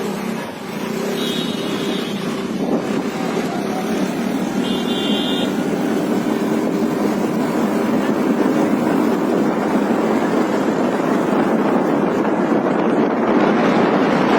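Tractor engine running hard, growing steadily louder, with two short high-pitched tones in the first few seconds.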